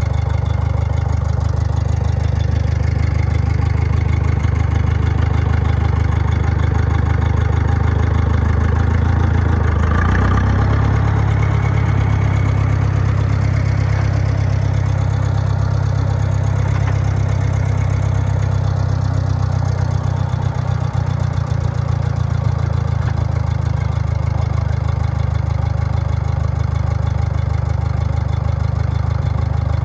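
Farm tractor engine running steadily at low speed, its note shifting up about ten seconds in.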